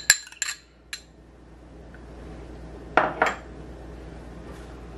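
Hard clinks against a glass mixing bowl: a few right at the start and two more about three seconds in, each with a short glassy ring.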